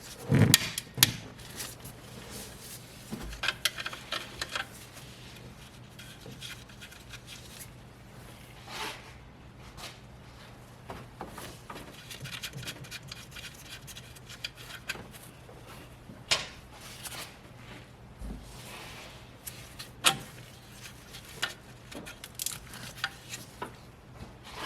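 Hand tools working on a tight 10 mm bolt in an engine bay: scattered metal clicks, knocks and rattles, the sharpest near the start and twice later on, over a faint steady low hum.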